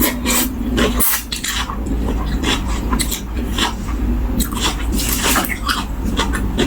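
Close-up wet chewing and smacking of a person eating a spicy tam sua salad with rice noodles, with many irregular crisp clicks and squelches.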